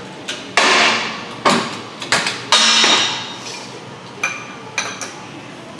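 Metal banging and clanking with a ringing tail as a lower ball joint is forced through a control arm in a 20-ton hydraulic shop press. Two loud ringing bangs come about half a second and two and a half seconds in, among several lighter clanks.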